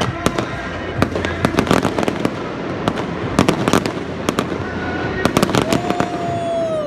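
Fireworks going off: a rapid, uneven series of loud bangs and crackles from aerial shells bursting. Near the end a whistle falls steadily in pitch.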